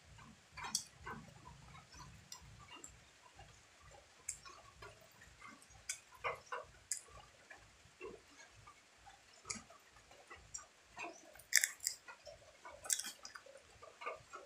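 Close-up chewing of chicken, with wet mouth clicks and smacks at irregular intervals and a couple of louder smacks near the end.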